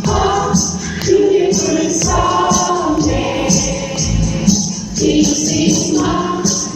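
Live pop band playing an upbeat song, with several voices singing together over a steady beat with tambourine.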